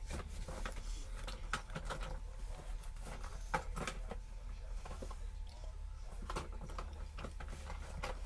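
Scattered faint clicks and taps, irregular and a few a second, over a steady low hum.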